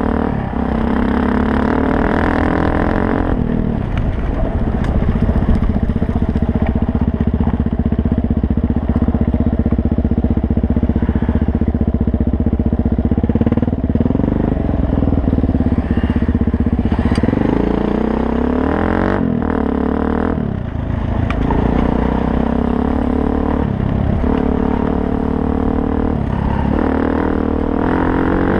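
Suzuki DRZ400S single-cylinder four-stroke engine running under way on a dirt road, its pitch stepping up and down several times through gear changes and throttle, over a constant low rumble.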